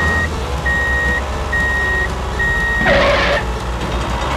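Truck reversing alarm sounding four steady high beeps, each about half a second long and just under a second apart, over a low, steady engine rumble. A short hiss comes about three seconds in.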